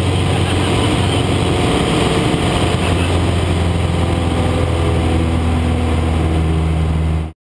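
Citabria 7ECA's four-cylinder aircraft engine and propeller running steadily in flight, heard from inside the cockpit as a loud, even drone. The sound cuts off suddenly near the end.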